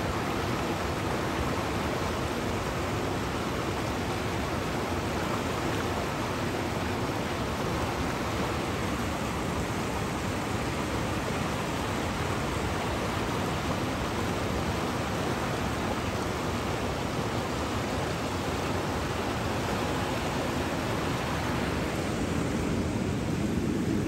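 River water rushing through rapids: a steady, even rush of water noise. Near the end the sound turns lower and fuller.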